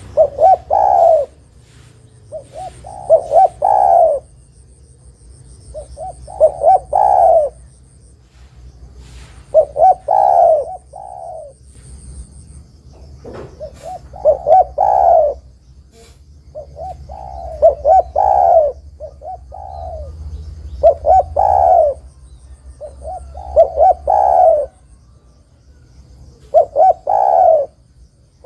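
Spotted dove (derkuku, tekukur) cooing: a phrase of several rolling coos, each phrase about a second and a half long, repeated every three to four seconds. This is the bird's calling song, the kind played to lure other spotted doves.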